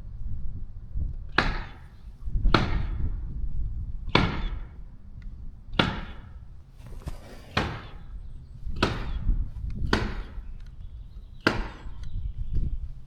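About eight sharp strikes, one every second or so, each a short hard knock.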